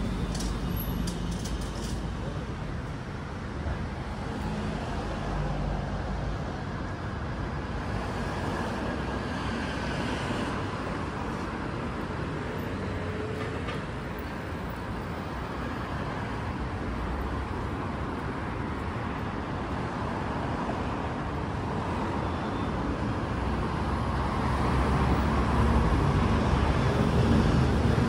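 Road traffic on a city street: a steady rumble and hiss of passing cars, growing louder over the last few seconds.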